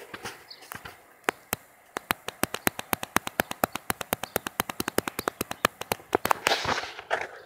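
A rapid, fairly even series of sharp clicks or taps, about eight a second, lasting about four seconds, followed by a brief rustling noise near the end.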